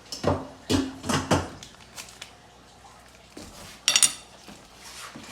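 Dishes and cutlery clattering: a few quick knocks in the first second and a half, then a bright ringing clink of metal on a plate about four seconds in.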